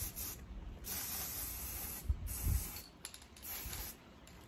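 Citadel Chaos Black aerosol spray paint can hissing in bursts as black primer is sprayed onto a miniature: a short burst at the start, a longer one of over a second, another shorter one, then several quick squirts before it stops near the end.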